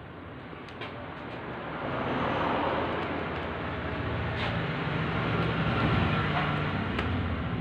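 A steady mechanical rumble that swells about two seconds in and holds, with a few sharp clicks of copier fixing-unit parts being handled and fitted.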